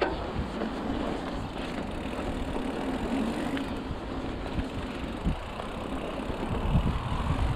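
Mountain bike rolling fast down a dirt trail: a steady rumble of wind on the microphone and tyres on dirt. A few knocks as the bike hits bumps, about five seconds in and near the end.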